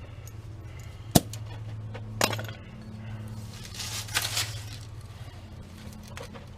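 Metal hand tools clinking and clanking, with one sharp clank about a second in and another a second later. A steady low hum runs underneath.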